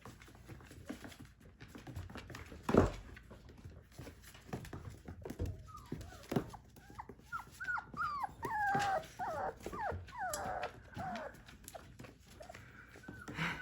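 Four-week-old puppies whining, with many short high whimpers that bend in pitch, thickest in the second half. A loud knock comes about three seconds in, among scattered lighter knocks and scuffles.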